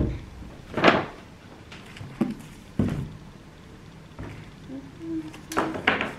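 Paper and small objects handled on a tabletop. There is a papery swish about a second in, then a couple of light knocks as things are set down, and more brief paper rustles near the end.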